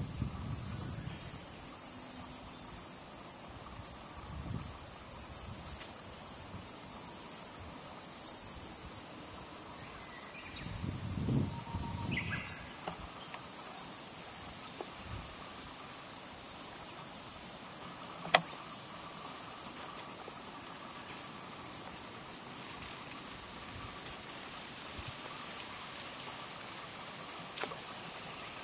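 A steady, high-pitched insect chorus drones without a break. A single sharp click stands out about two-thirds of the way through.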